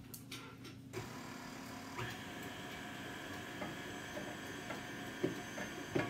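KitchenAid stand mixer switched on about a second in and running with a steady motor whine as flour is blended into the dough. A few light knocks near the end as the upturned flour bowl is tapped.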